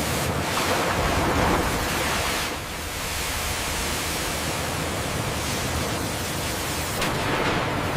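Sawmill machinery noise: a steady, loud rush with no clear tone, swelling about a second in and again near the end.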